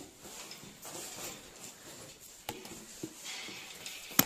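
Climbing a caged steel ladder: scuffs and a few light knocks of hands, boots and gear against the metal rungs, then one sharp, loud knock just before the end.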